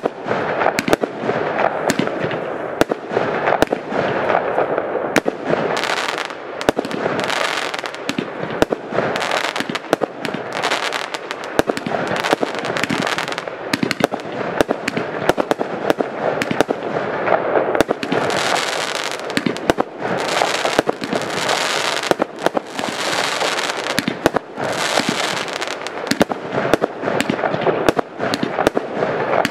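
Fireworks battery firing aerial shots in rapid, unbroken succession: sharp launch and burst cracks over a constant hiss and crackle.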